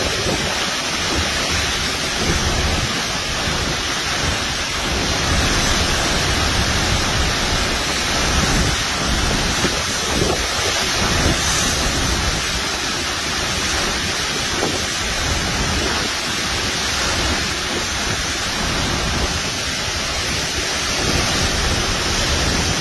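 Hurricane-force wind and driving rain in a steady, loud rush, gusting unevenly, with wind buffeting the microphone.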